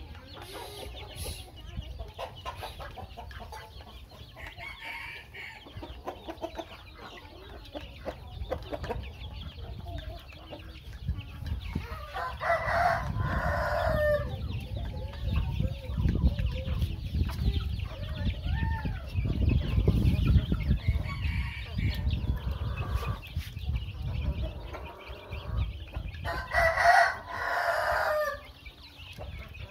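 Chickens clucking and chicks peeping around a feed bowl. A rooster crows twice, about twelve seconds in and again near the end. A low rumble rises and falls through the middle.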